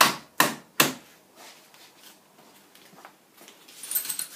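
A bolt being tightened into a wooden bunk bed frame with a hand tool: three sharp, quick strokes about 0.4 s apart, then it stops. A fainter rustle of handling follows near the end.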